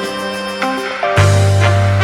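Background music: held instrumental chords, with a louder chord and a deep bass note coming in about a second in.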